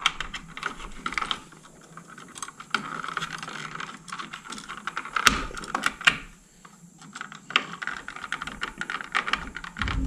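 A light switch and its wires being pushed into a plastic electrical box, then the switch's mounting screws driven in with a hand screwdriver: irregular clicks, creaks and scraping of plastic and metal, with two sharp clicks about five and six seconds in.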